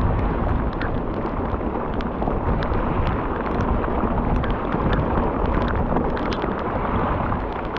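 Heavy wind noise and driving tropical-storm rain buffeting the camera microphone of a mountain biker riding a wet trail: a loud, dense rumble with scattered sharp ticks throughout.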